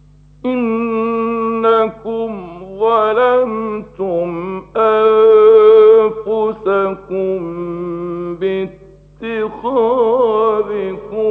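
A man reciting the Quran in a melodic, drawn-out style: long held notes with ornamented turns, broken by short pauses for breath, starting about half a second in after silence. A steady low hum from the old recording runs underneath.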